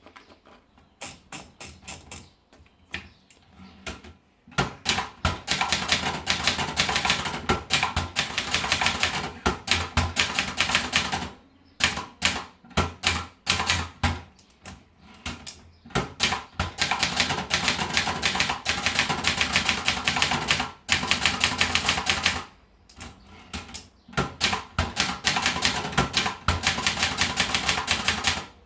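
Brother Deluxe 250TR typewriter being typed on: the keys clack in rapid runs, broken by slower, sparser strokes.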